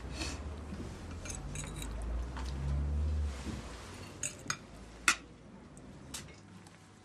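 Cutlery and crockery clinking at a dinner table: a few sharp clinks in the second half, one louder than the rest. A low hum underneath fades out about halfway through.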